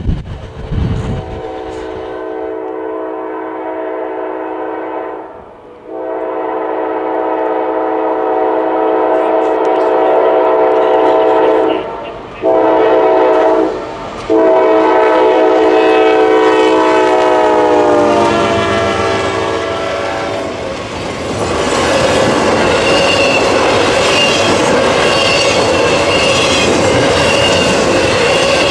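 Diesel freight locomotive's air horn sounding the grade-crossing signal: long, long, short, long. Its chord drops in pitch as the locomotive passes, then comes the steady rumble and clickety-clack of double-stack intermodal cars rolling by.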